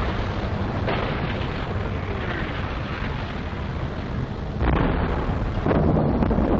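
Wartime battlefield field recording of German artillery fire and street fighting: a continuous rumble of shell bursts and gunfire, with sudden louder blasts about a second in and twice more near the end.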